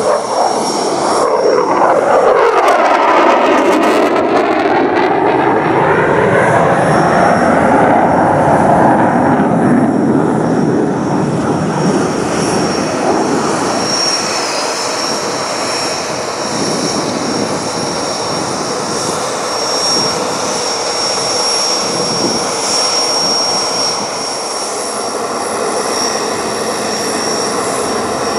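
Boeing F/A-18F Super Hornet's twin General Electric F414 turbofans, loud jet noise as the fighter flies past. A sweeping, phasing whoosh falls in pitch over the first few seconds, then the jet noise carries on steady and a little quieter as the aircraft moves off.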